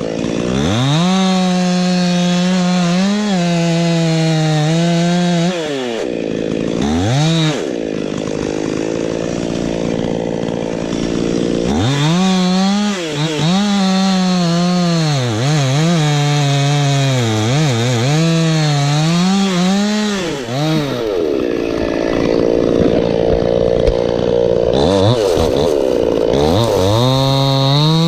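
Chainsaw cutting into a pine trunk, its engine pitch sagging as the chain bites and rising again. It drops back toward idle several times and revs up once more near the end.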